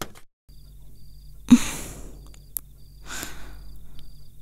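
Evening outdoor ambience of crickets chirping in short repeated trills over a low steady background, broken by a few short, loud breathy sounds like sighs or exhales.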